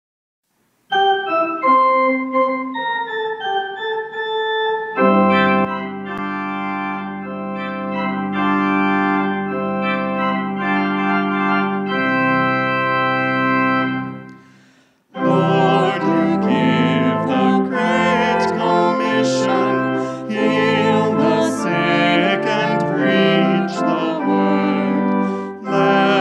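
Organ music. A falling run of notes begins about a second in, then held chords over a low bass line. The chords fade out about halfway through, and a fuller, busier passage starts a second later.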